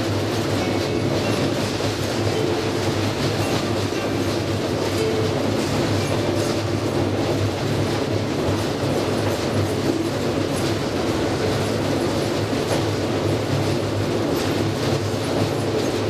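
Narrow-gauge forest railway train running steadily, heard on board: a small locomotive's engine hums under the rumble of the wheels clicking over the rail joints.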